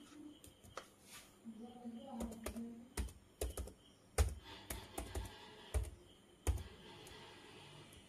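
Laptop keyboard keys being tapped one at a time as a password is typed: a string of separate clicks, sparse at first and firmest through the middle.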